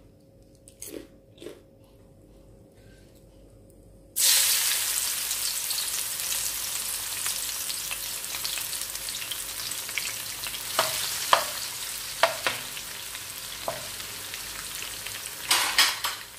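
Sliced bitter gourd hitting hot oil in a wok: a sudden loud sizzle about four seconds in that slowly settles into a steady frying hiss. A few sharp knocks sound during the frying.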